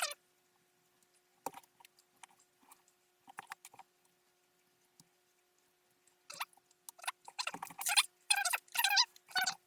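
Small pressed-plastic kit pieces being handled, clicking and scraping against each other and the sprue: a few scattered clicks at first, then a dense run of clicking and rustling in the second half.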